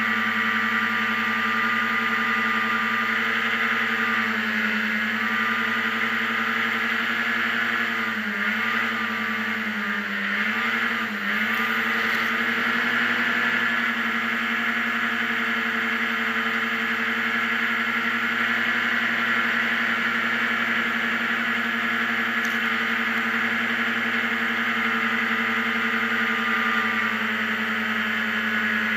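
Racing hovercraft's engine running hard at steady high revs, heard from on board over the rush of its fan and air. The revs dip and pick up again a few times about a third of the way in, then hold steady.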